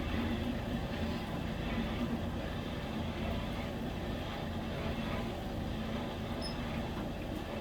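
Forge running with a steady rumble and hiss, no hammer blows.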